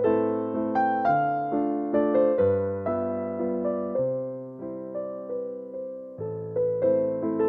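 Background music: a calm piano melody, notes struck and decaying at an easy pace.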